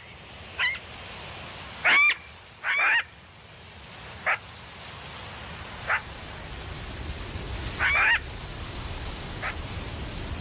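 Jackals giving short, high yelping alarm calls, about eight of them, one every second or two, sounding the alarm at a stalking leopard. A steady hiss runs underneath.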